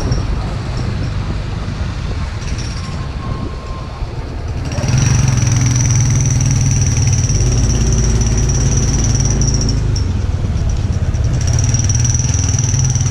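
Motorcycle engine running while riding, mixed with road and wind noise, with a steady high whine; it gets louder about five seconds in and stays louder.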